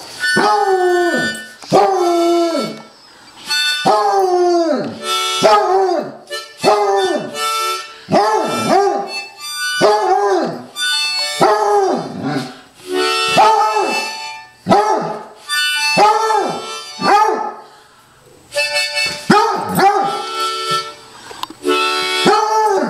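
Basset hound howling along to a harmonica: a run of short howls, one after another, each sliding down in pitch, over the harmonica's held notes.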